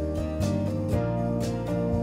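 Background music with a strummed acoustic guitar.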